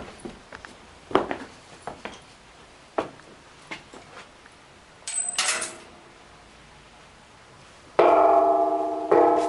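Scattered small knocks and clicks, then a metal temple bell struck twice near the end, about a second apart, each stroke ringing on with several steady tones that fade slowly.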